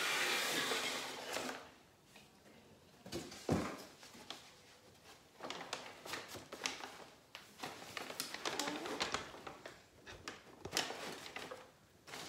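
Cardboard packaging sliding and scraping for about the first second and a half, a single thump about three and a half seconds in, then stiff kraft paper wrapping crinkling and rustling in irregular bursts as hands pull it open.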